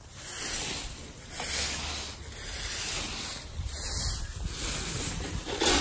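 Leaf rakes scraping through dry leaves and grass in repeated strokes, about one a second.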